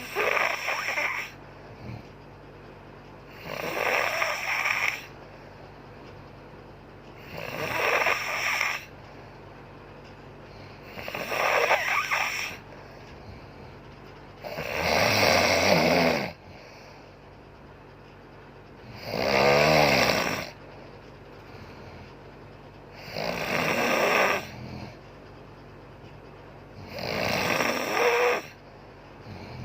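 A woman snoring in steady rhythm: eight snores about four seconds apart, each lasting about a second and a half.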